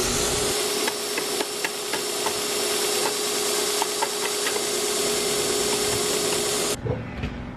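Belt grinder running steadily with a constant whine, while a knife blade is dipped into a bucket of cooling water beside it, with small splashes and clicks. It cuts off abruptly near the end.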